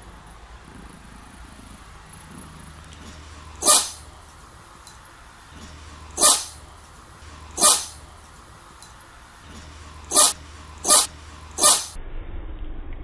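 Scottish Fold cat sneezing six times, each a short sharp sneeze. The first three come a second or two apart; the last three come quickly, under a second apart, near the end.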